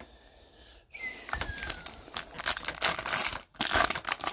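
A foil trading-card pack wrapper being torn open and crinkled by hand. It starts with a tear about a second in, followed by dense crinkling and rustling.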